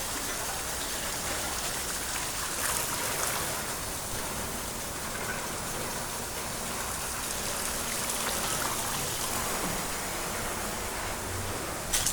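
Steady hiss of running water, with a single sharp knock near the end.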